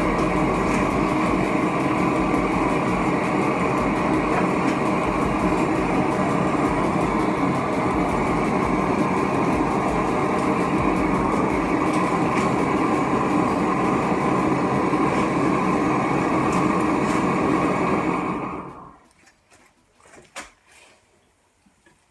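Homemade propane-tank metal-melting furnace running with a steady loud rushing noise, shut off abruptly about 18 seconds in; a few faint clicks follow. The furnace is shut down with the melt ready to pour.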